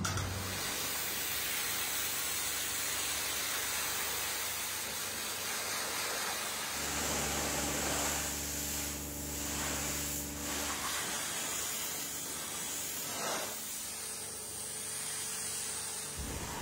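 Car-wash high-pressure lance spraying water onto a cow's head: a steady hiss of the jet, with a low machine hum joining for a few seconds midway.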